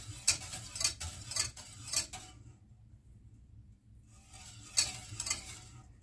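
Wire whisk stirring milk in a stainless steel saucepan, its wires scraping and clinking against the pan in strokes about twice a second. It pauses briefly and starts again about four seconds in, as fine semolina is whisked in to keep it from lumping.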